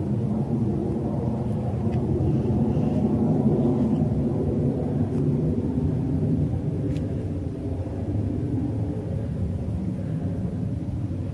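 McDonnell Douglas MD-88 airliner's two rear-mounted Pratt & Whitney JT8D turbofans, a deep, loud rumble as it climbs away overhead after takeoff, slowly fading.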